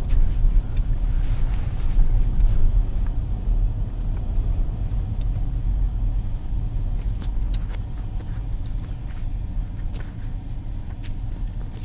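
Ford EcoSport driving on a snowy, icy road, heard from inside the cabin: a steady low rumble of engine and tyres, with a few sharp ticks scattered through it. The rumble eases off gradually.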